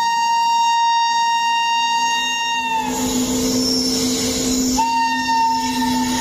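Locomotive horn sounding one long steady blast that stops about three seconds in, then a second long blast starting near the five-second mark, over the running noise of a train passing close on the next track.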